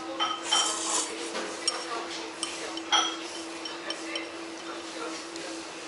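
A short slurp of thick tsukemen noodles about half a second in, then chopsticks clinking lightly against a porcelain bowl several times, the sharpest clink about three seconds in.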